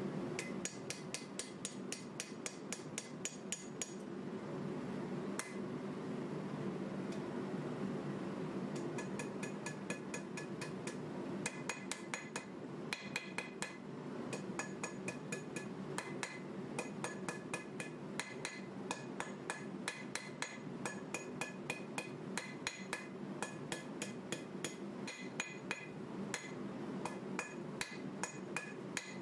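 Hand hammer blows on a red-hot 1095 steel knife blank held on an anvil: a rapid run of strikes, about three or four a second, each with a bright anvil ring. The hammering thins to a few blows for several seconds about four seconds in, then resumes steadily.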